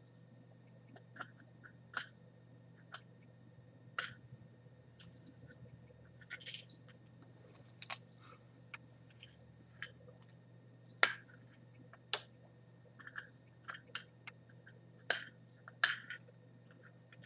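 Fingers picking and peeling at tape wrapped around a package: irregular sharp clicks and crackles, the loudest about eleven and twelve seconds in, over a faint steady low hum.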